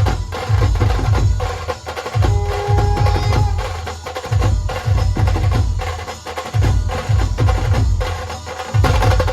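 Dhol tasha drumming in a train-running rhythm: heavy dhol strokes in repeated groups about every two seconds under a fast, steady rattle of tasha strokes, with a short held note about two and a half seconds in.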